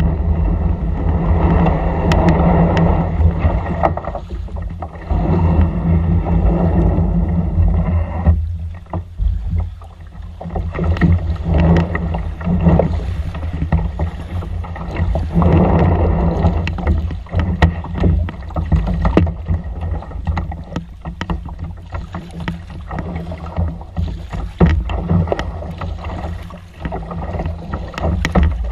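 Kayak paddling on open water: a steady low rumble with scattered splashes and knocks. A steadier hum over the rumble cuts off suddenly about eight seconds in.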